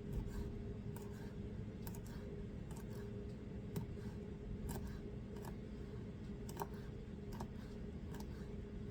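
Lemon rind being cut up with a blade: irregular sharp clicks, about one or two a second.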